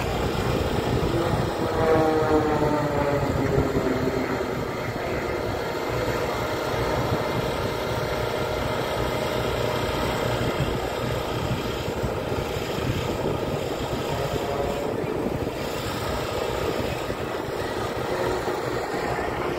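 An aircraft flying past at an air show, its engine note dropping in pitch about two to four seconds in as it passes, over a steady wash of engine and wind noise.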